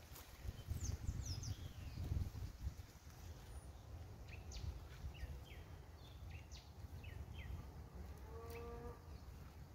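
Small birds chirping: a series of short, high, falling chirps in two clusters. There is a low rumble in the first few seconds, and a brief pitched call near the end.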